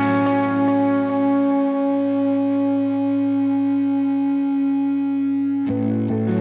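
Background music of long, held chords, changing to a new chord about five and a half seconds in.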